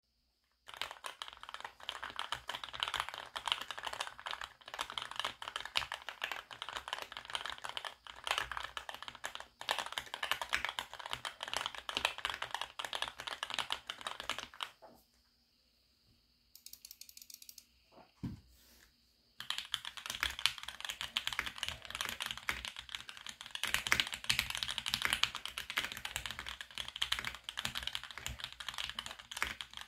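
Fast, continuous typing on a Geonworks F1-8X full-aluminium, gasket-mount custom mechanical keyboard with lubed Tealios V2 linear switches and lubed stabilizers. For the first half the case is damped with Poron and Sinsulate foam. After a pause of about four seconds with a single knock, the typing resumes with only Sinsulate foam in the case.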